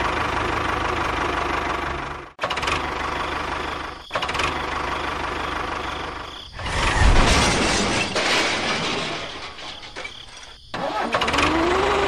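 Tractor engine sound running steadily with a fine chugging beat, cut off abruptly and picked up again several times, and louder for a couple of seconds just past the middle.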